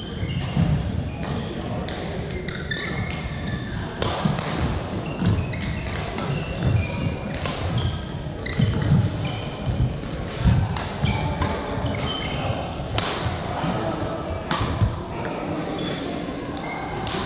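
Badminton play in a large hall: sharp racket-on-shuttlecock hits at irregular intervals, short shoe squeaks on the court mat, and thudding footsteps, all with a hall echo.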